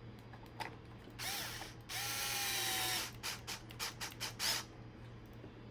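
Screws being driven back in to mount a servo in an RC truck: two bursts of whirring about a second in, then a quick run of clicks.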